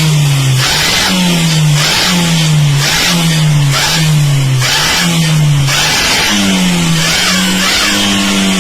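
Car engine revved over and over, its pitch jumping up and sagging back about once a second, then held at a steadier higher pitch near the end.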